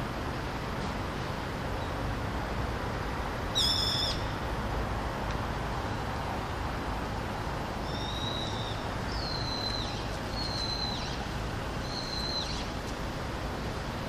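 Brown-eared bulbul calling: one loud high-pitched call about four seconds in, then four shorter, fainter high calls, about one a second, in the second half, over a steady low background rumble.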